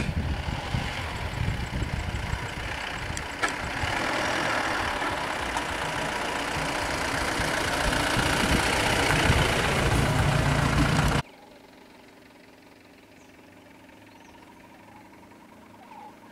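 A vehicle engine idling close by, with a rough, gusty low rumble on the microphone. The sound cuts off suddenly about eleven seconds in, leaving only faint background noise.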